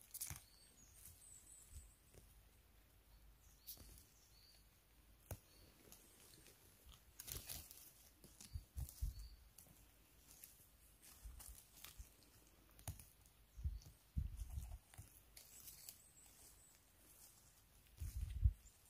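Faint, irregular rustling, snapping and crunching of forest-floor moss and litter while mushrooms are picked by hand, with a few low thumps.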